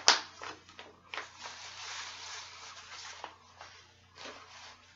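Clear plastic package of synthetic braiding hair crinkling as it is handled and turned over: a sharp crackle at the start, about two seconds of steady rustling, and a brief rustle near the end.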